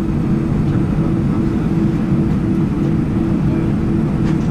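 Cabin noise of a taxiing jet airliner, heard from inside the cabin: the engines running at taxi power as a steady low rumble with a constant hum.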